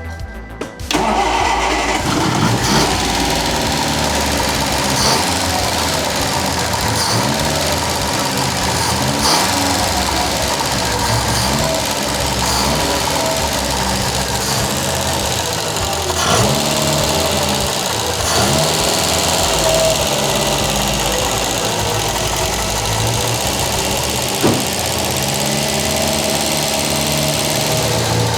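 Ford Anglia's four-cylinder overhead-valve engine running after starting up, revving up and down several times. It runs a little rough, which the owner puts down to fuel starvation somewhere in the carburettor, such as a blocked jet. Background music plays underneath.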